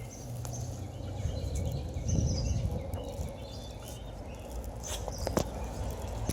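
Outdoor park ambience on a walk: a steady low rumble on the microphone, faint short bird chirps, and a couple of sharp clicks about five seconds in.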